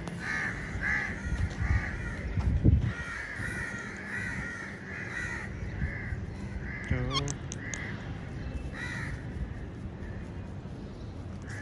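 A parrot calling: a run of short, harsh, repeated squawks with a quick warbling note about seven seconds in.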